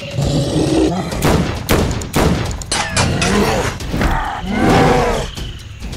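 Dubbed fight sound effects: a rapid string of heavy punch impacts and thuds, with deep, gliding growls and groans twice in the second half.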